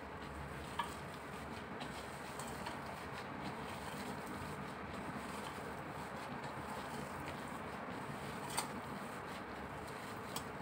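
Raw pork and beef mince being squeezed and mixed by a gloved hand in a stainless steel bowl: soft squishing over a steady background hiss, with two sharp clicks, one about a second in and one near the end.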